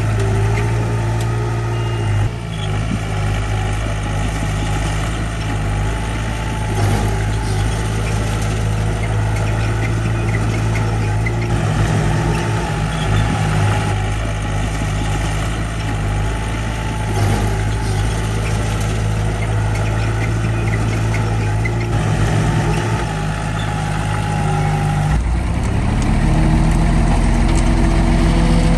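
Diesel engine of heavy earthmoving machinery running steadily. About 25 seconds in, the engine note changes and gets louder.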